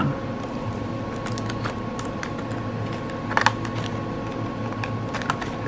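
Small scattered clicks and rustles of metal scissors being handled and slipped back into their plastic package, with one sharper click about three and a half seconds in, over a steady low hum.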